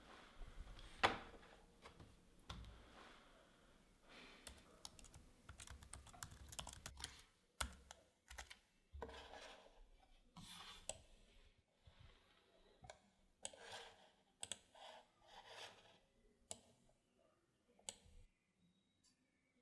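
Typing on a laptop keyboard: quick, irregular key clicks in runs with short pauses, growing sparser toward the end, with one sharper click about a second in.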